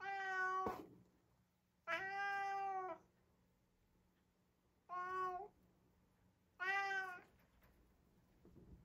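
A domestic cat meowing four times. Each meow is under a second long and fairly steady in pitch, with a pause of one to two seconds between them.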